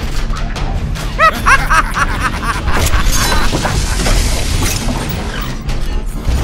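Cartoon sound effects for a giant robot over background music: a quick run of electronic chirps about a second in, then a long noisy rush with booms.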